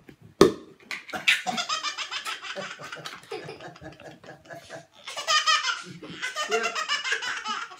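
A baby laughing hard in long runs of rapid, breathy belly laughs, with a single sharp pop about half a second in.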